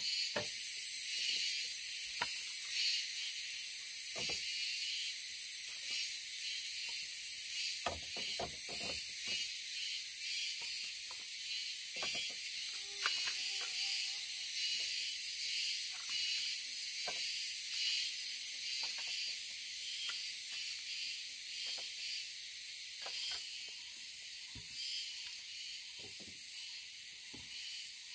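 Steady, high-pitched chorus of forest insects, with scattered short knocks of green bamboo pieces being handled and set onto a bamboo frame.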